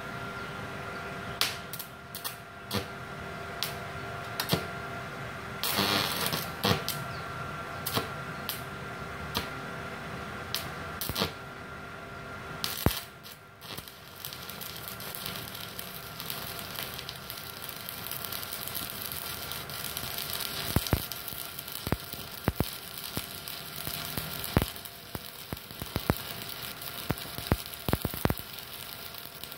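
Stick arc welding with a 4 mm electrode on a MultiPro Solid 125 IGBT inverter welder at its 125 A maximum. For the first dozen seconds the rod is struck, with scattered crackles and short sputters as the arc catches and dies, a hard start for a 4 mm rod on this machine. From about 14 seconds in the arc holds with a steady crackle and sizzle.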